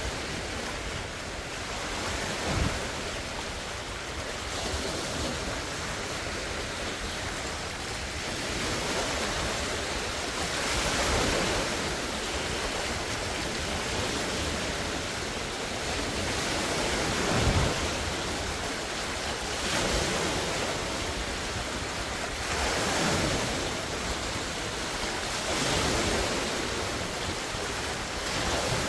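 Large wind-driven waves washing and breaking on a lake shore in a steady rushing wash, swelling every few seconds, with two sharper splashes, one a few seconds in and one past the middle. Wind buffets the phone's microphone.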